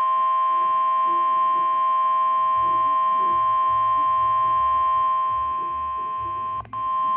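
NOAA Weather Radio warning alarm tone: a single steady, piercing tone from the weather radio's speaker, signalling that a severe thunderstorm warning is about to be read. It drops out for a split second near the end, then resumes.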